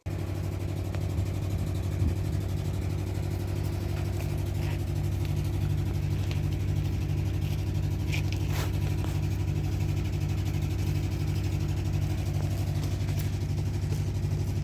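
A motor running steadily at constant speed with an even, rapid pulsing in its hum, starting abruptly.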